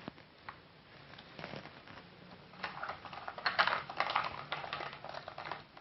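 Small plastic clicks and crackles from the top case of an ASUS X453 laptop being pried loose, its plastic clips snapping free: a few single clicks, then a dense run of clicking from about halfway through.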